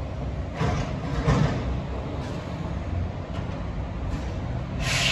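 Low, steady rumble of distant city traffic, with a few brief louder rushing swells, the strongest near the end.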